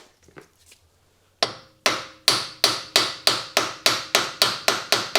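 Steady hammer blows on metal, about three a second, starting about a second and a half in, each with a short metallic ring: a hammer knocking the driveshaft through the front wheel hub of a Hyundai Ioniq Hybrid. A few faint clicks come before them.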